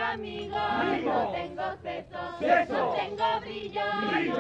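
A group of voices singing together in chorus, with pitches sliding up and down.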